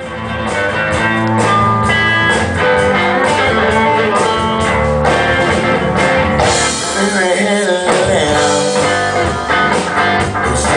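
A live blues band playing: electric lead guitar lines with bent notes over electric bass and drums, fading in at the start.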